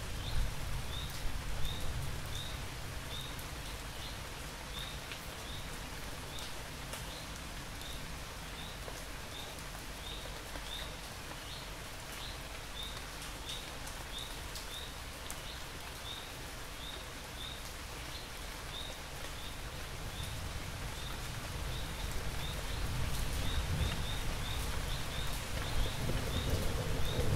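Crickets chirping in a steady, even rhythm, a little over one chirp a second, over a steady hiss of light rain and a low rumble. The rain grows louder near the end.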